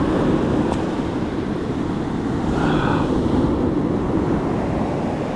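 Steady rush of surf washing up the sand, mixed with wind on the microphone.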